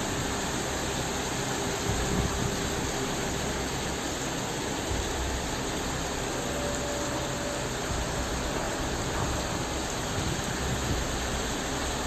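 Steady rushing noise of a rainstorm over floodwater, with a low rumble underneath.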